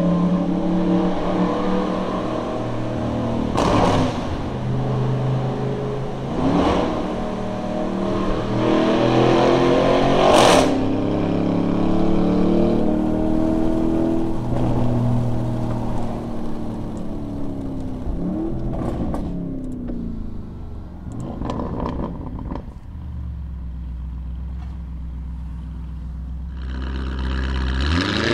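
2020 Lamborghini Urus twin-turbo V8 with a Capristo catback exhaust, 200-cell cats and a Stage 1 remap, heard from inside the cabin. It accelerates hard through the gears, the engine note climbing and then dropping with a sharp crack at each of three upshifts in the first ten seconds or so. Later it settles to a steadier low drone.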